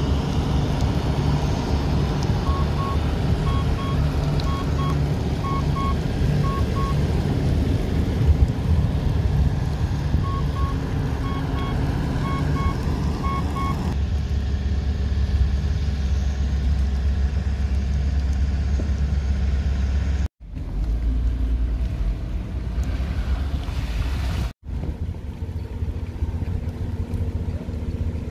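Inside a vehicle wading through a flooded road: a steady engine and road rumble with water washing around it. A chime beeps repeatedly in two runs during the first half. The sound drops out briefly twice in the second half.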